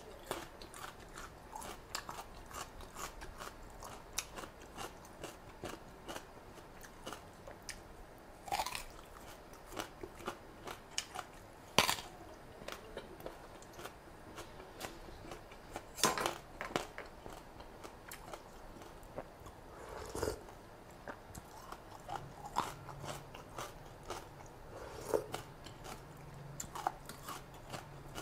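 Close-miked eating: a person bites into and chews crisp raw vegetables, with crunching and wet mouth sounds. Sharp crunches come every few seconds, the loudest about twelve and sixteen seconds in. A low steady hum joins near the end.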